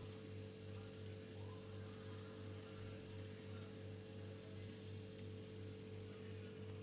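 Steady electrical hum, with one faint, high snoring breath from a sleeping chihuahua about three seconds in.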